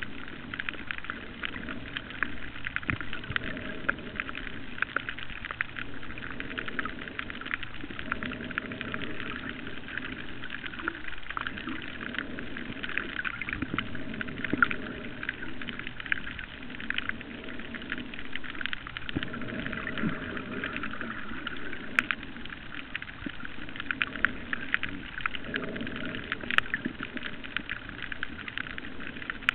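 Underwater reef ambience: a dense, steady crackle of fine ticks over a lower rush of water that swells and fades every few seconds.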